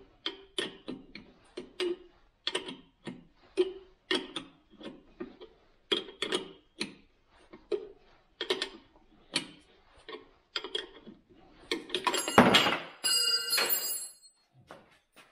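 A metal wrench clicking repeatedly, about twice a second, as it is worked on a pair of jammed nuts to tighten a stud on a sterndrive gimbal housing. Near the end comes a louder metallic clatter with ringing, as the wrench is set down on the wooden bench.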